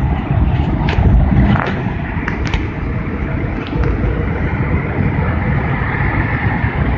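Wind buffeting an open-air microphone high on a scaffold, a steady rumble over the hiss of city traffic below, with a few light clicks in the first couple of seconds.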